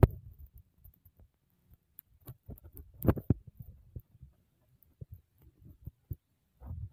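Scattered soft low thumps and light rustles of a handheld phone microphone being moved about, with one louder rustle about three seconds in.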